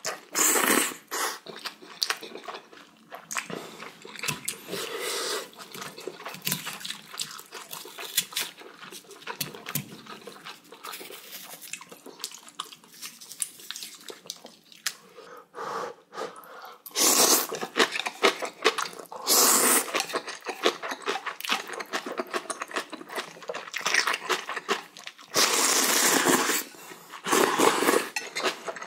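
Close-miked eating sounds: slurping ramen noodles and chewing, with many small wet clicks and several long, loud slurps, most of them in the second half.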